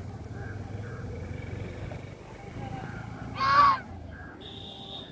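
Duck giving one loud, harsh quack about three and a half seconds in, over a low steady rumble, with a brief high steady tone near the end.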